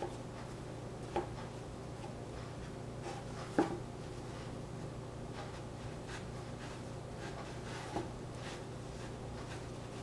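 Quiet hand work on a kitchen counter: faint rustling and scraping with three light knocks, the loudest about three and a half seconds in, over a steady low hum.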